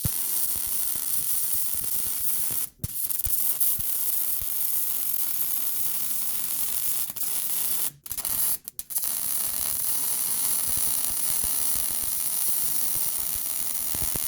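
Arc welder laying a bead on a steel exhaust resonator pipe: a steady crackling sizzle. It stops briefly about three seconds in and twice around eight seconds in, then starts again each time.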